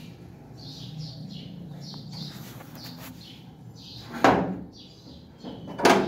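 A padlocked metal door being handled: two loud clanks about a second and a half apart. Small birds chirp repeatedly in the background.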